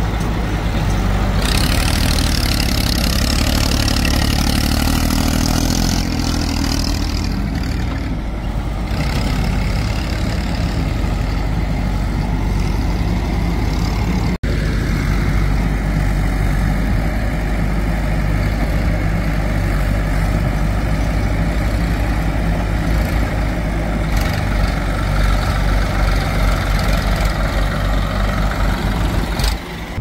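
Diesel engines of a JCB 3DX backhoe loader and a Massey Ferguson tractor running steadily as the backhoe digs and loads soil. The sound drops out for an instant about halfway through.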